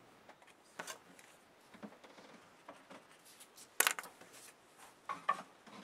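Light clicks and knocks of a wooden trim strip being handled and set against the edge of a plywood tabletop, with one sharper click about four seconds in.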